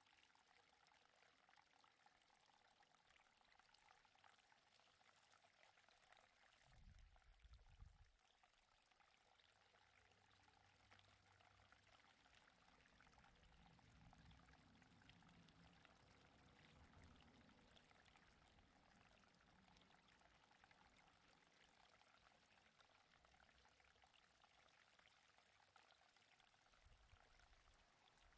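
Near silence: a faint steady hiss of outdoor room tone, with brief low rumbles about seven seconds in and again near the end.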